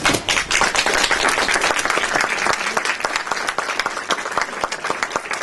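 A crowd applauding the unveiling of a bronze door, many hands clapping in a dense, steady patter that starts suddenly.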